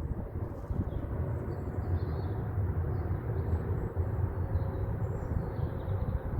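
Steady low rumble of an aeroplane flying overhead, with faint bird chirps above it.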